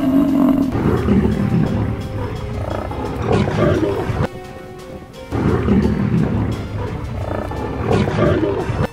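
Lions growling, loud and rough, in two stretches broken by a gap of about a second some four seconds in, over background music.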